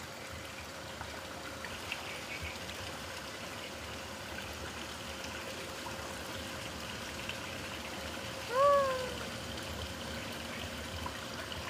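Steady trickle of running water, with a single short high call that rises and then falls about eight and a half seconds in.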